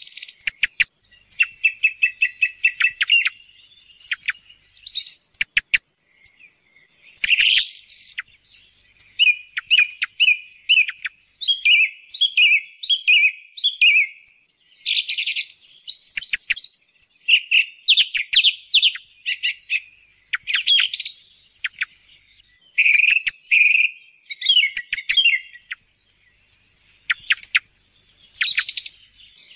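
Song thrush singing: a run of varied whistled and chattering phrases, many of them repeated several times in quick succession, separated by short pauses.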